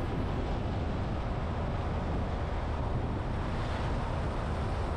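Motorcycle riding at a steady speed: the engine running and wind rushing over the microphone in a constant roar with no breaks.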